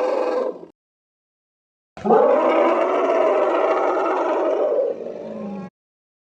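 Asian elephant trumpeting: the tail of one call cutting off under a second in, then after a silent gap a second long trumpet of about three and a half seconds that trails off more quietly at its end.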